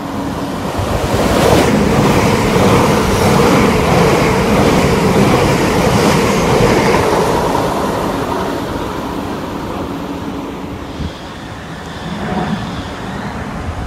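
A train passing along the line at speed. Its rush and rumble swell in the first couple of seconds, stay loud for several seconds, then gradually die away.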